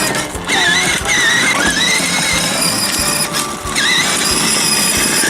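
Background music with a high, wavering melody.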